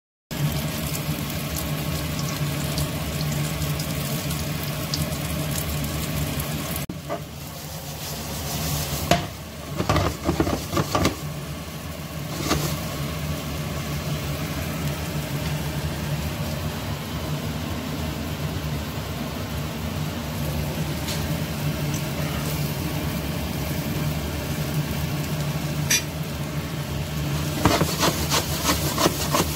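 Small flour-coated fish sizzling in a non-stick frying pan over a steady low hum, with a cluster of knocks and clatter about ten seconds in and again near the end as the pan is shaken and the fish move about.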